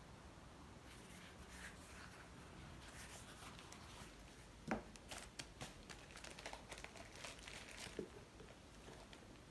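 Faint crinkling and rustling with scattered light taps, as of something being handled, with a soft knock about five seconds in.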